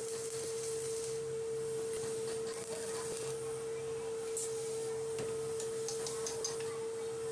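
A steady pure tone held at one unchanging pitch, over faint background noise, with a few light clicks near the end.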